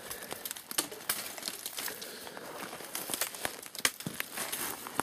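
Footsteps crunching over dry brush and ground, a run of irregular crackles and snaps with rustling.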